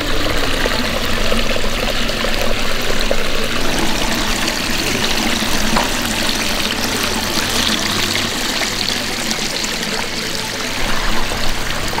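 Small pondless waterfall running: water spilling over a rock spillway and trickling down a short rocky stream in a steady splashing trickle.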